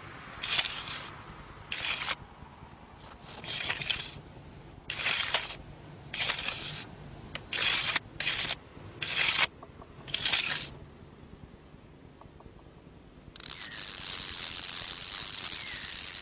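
A series of about ten short swishing whooshes of fishing rods being swung through the air. About thirteen seconds in, a steady hiss starts.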